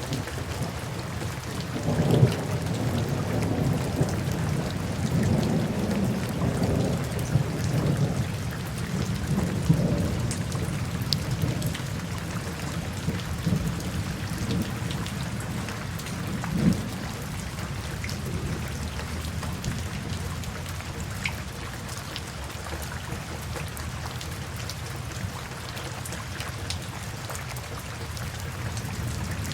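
Steady rain falling with low rolling thunder, the rumbling strongest through the first ten seconds and easing off later.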